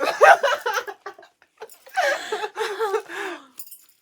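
A person laughing, high-pitched and loud, in two bursts: one at the start and a second, longer one about two seconds in.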